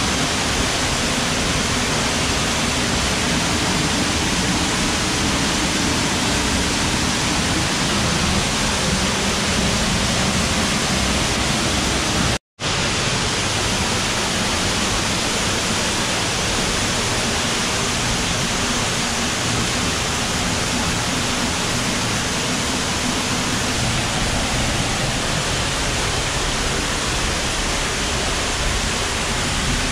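Steady rush of flowing water, with a break of a split second about halfway through.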